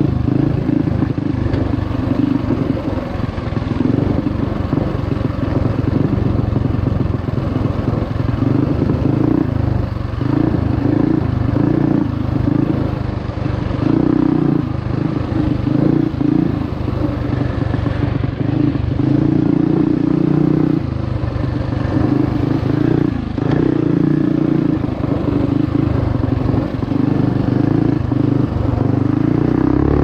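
Mini bike's single-cylinder Predator 212cc Hemi engine running under load on a dirt trail ride, its note rising and falling with the throttle, with scattered clatter from the bike over rough ground.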